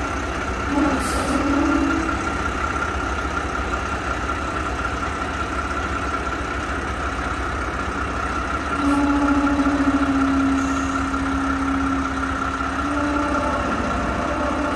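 Mack dump truck's diesel engine idling and rumbling steadily as the truck creeps forward, with a short hiss about a second in and a louder, steady engine note from about 9 to 13 seconds.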